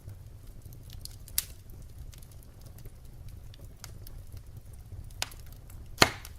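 Firewood burning: a steady low rumble with a few sharp crackles and pops, the loudest about six seconds in.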